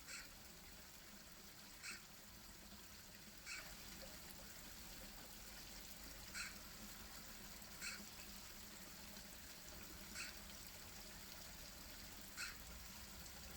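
Faint, steady running water from a garden pond's small waterfall. A short, sharp sound recurs about seven times, one every second or two.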